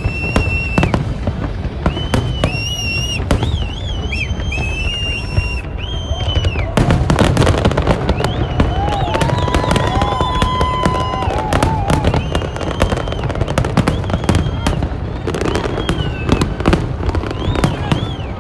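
Fireworks display with many shells bursting in quick, overlapping succession, a continuous barrage of bangs and crackle that grows heavier about seven seconds in. Short high whistles rise and fall above the bangs.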